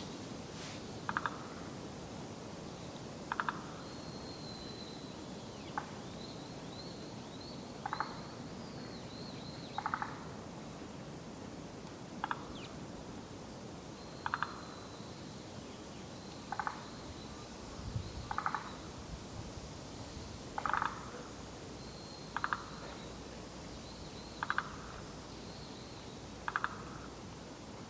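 A frog giving a short rattling call about every two seconds, which the recordist takes for a forest green tree frog (Zhangixalus arboreus) but is not sure of.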